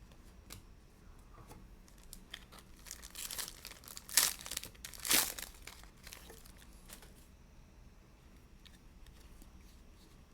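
A foil trading-card pack wrapper being crinkled and torn open, with two sharp tearing rips about four and five seconds in.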